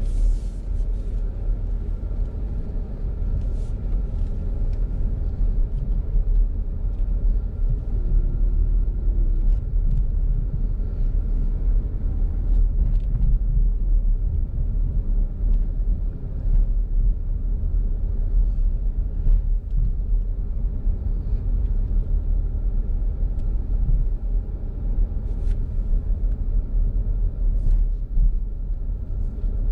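Steady low rumble of a car's engine and tyres on a paved road, heard from inside the cabin, with a few faint ticks now and then.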